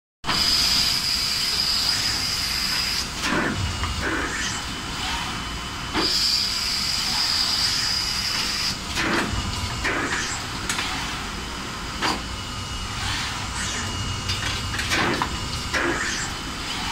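Robotic unloading cell with a pneumatic suction-cup gripper at work: air hissing with a high steady whistle that holds for about three seconds, twice, and short sharp hisses and clunks several times, over a steady machine hum.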